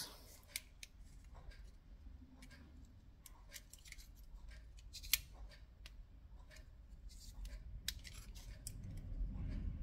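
Light metallic clicks and scrapes of a digital caliper's steel slide being opened and closed around a steel engine tappet, with small handling knocks of the tappets; one sharper click about five seconds in.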